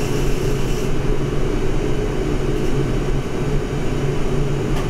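Steady low rumble of water running through the supply piping into a new electric water heater tank as it fills.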